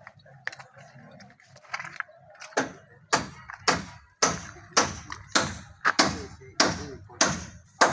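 A steady series of sharp knocks, about two a second. They start faint and turn loud about three seconds in, each ringing briefly after the strike.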